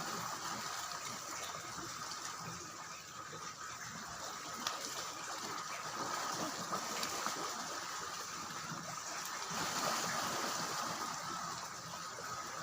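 Steady rush and trickle of moving water.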